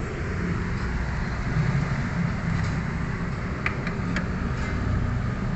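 Steady low mechanical rumble with a few short, light clicks a little past the middle.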